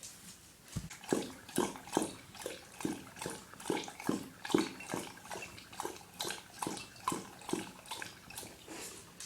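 Dog lapping water from a bowl: a steady rhythm of wet splashing laps, about two to three a second, starting about a second in and easing off near the end.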